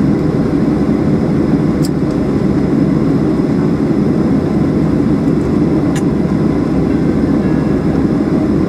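Steady rumble of a Boeing 737-800's CFM56 engines and cabin noise, heard from inside the passenger cabin after landing. Two faint clicks, about two seconds and six seconds in.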